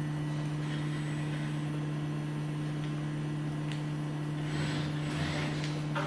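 Steady low electrical hum, with faint hissy rustles about four and a half to six seconds in.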